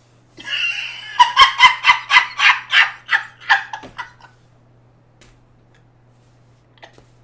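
A man laughing hard: a quick run of about a dozen bursts, about four a second, dying away about four seconds in.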